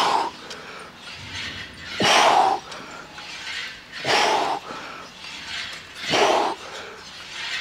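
A man breathing out hard with each rep of a cable lat pulldown, one loud breath about every two seconds.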